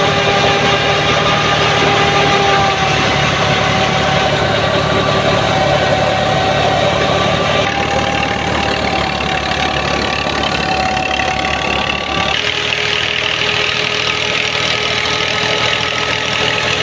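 Tractor diesel engine running steadily at working speed, belt-driving a wheat thresher, with a steady whine from the threshing machinery over the engine's rumble. The mix shifts abruptly twice, about 8 and 12 seconds in.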